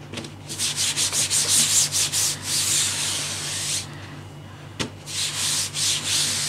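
A cloth scrubbing over the ink-coated mesh of a wooden-framed screen-printing screen, in quick rubbing strokes for about three seconds, then a short lull with one small tap, then more rubbing. The ink building up on the screen is being wiped off so the prints stay clean and sharp.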